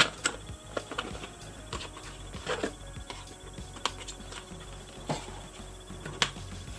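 Irregular clicks, snaps and crinkles of plastic and cardboard toy packaging being handled as a Barbie doll is freed from her box.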